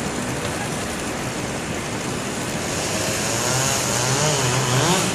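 Engine of tree-removal machinery running steadily, joined about three seconds in by a motor whose pitch wavers up and down.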